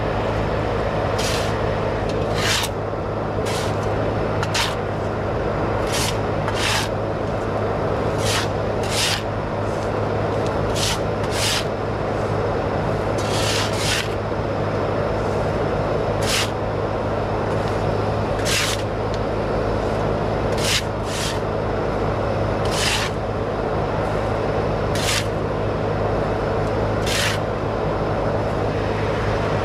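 Bobcat skid steer engine running steadily, with short, sharp shovel scrapes on dirt and pavement every second or two as loose soil is cleared from around the auger hole.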